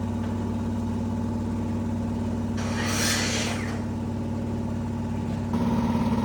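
A power tool's electric motor running with a steady hum, with a hissing rush about 3 seconds in. It grows louder with a higher whine about 5.5 seconds in, then cuts off suddenly.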